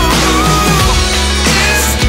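Pop song with drums keeping a steady beat and a held melody note that bends about halfway through.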